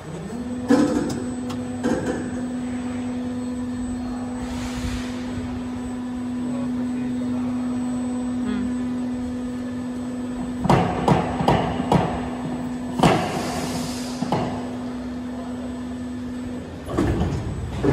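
DM-268 injection molding machine running through a cycle: a steady hum that stops near the end, with sharp knocks and clanks from the mold and clamp, a quick cluster of them after ten seconds, and two short hissing rushes.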